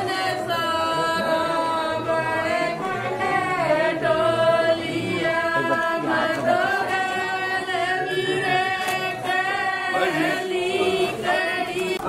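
Voices singing a song in long, held notes that glide from one pitch to the next.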